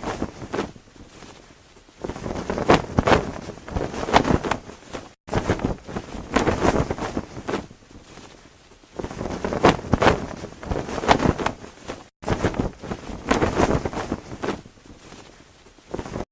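Cloth flag flapping in gusty wind, with rapid snaps of the fabric coming in surges a few seconds long and short lulls between. The sound drops out abruptly twice, about five and twelve seconds in, where the effect's loop restarts.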